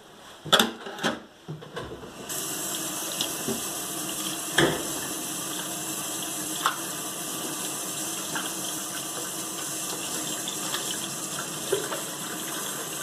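Kitchen tap running into a stainless-steel sink as raw beef flank steak is rinsed under it on a plate. A few sharp knocks come in the first two seconds, then the water starts about two seconds in and runs steadily.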